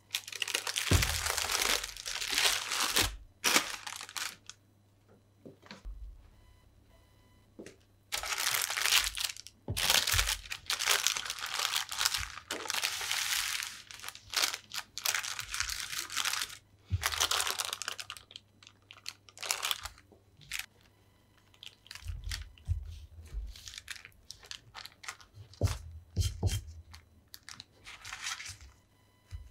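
Baking paper under a baked herb kuku crinkling and rustling as it is handled, in several long bursts, with a few dull knocks on a wooden board in the later part.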